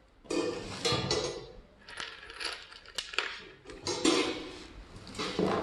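Metal assembly parts clinking and clattering as they are handled and set down, in several separate bursts.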